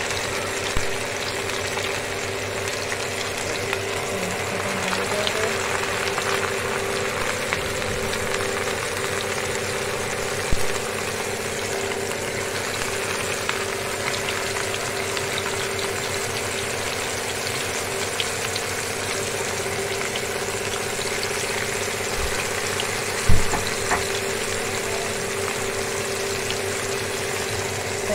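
Flour-coated fish pieces deep-frying in hot oil, with a steady sizzle and bubbling. There are two brief knocks, one about ten seconds in and a louder one near 23 seconds.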